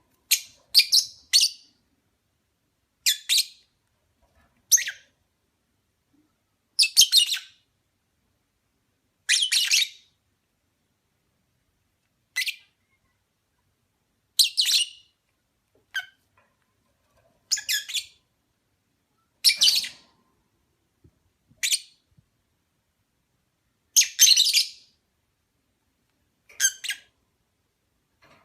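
Opaline parblue lovebird giving short, high-pitched chirps, one brief call every one to three seconds with silence between.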